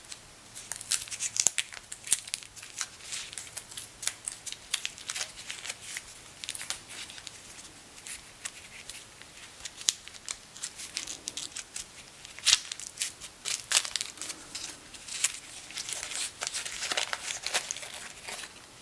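Paper wrapping and tape being peeled and torn off plane irons, with crinkling of thin wrapping paper. The crackles come irregularly throughout and are densest in several bursts in the second half.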